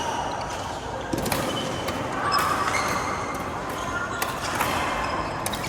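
Badminton play on an indoor court: a few sharp racket-on-shuttlecock hits and short high squeaks of shoes on the court floor, over background chatter.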